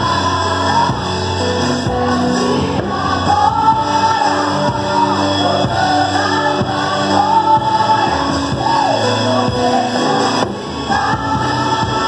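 Live worship band performing a song: singers carry the melody over sustained electronic keyboard chords and a light beat.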